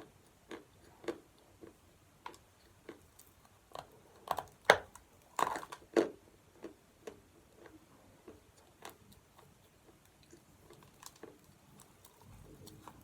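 A person biting and crunching pieces of chalk: short sharp crunches at irregular intervals, the loudest few coming close together about halfway through.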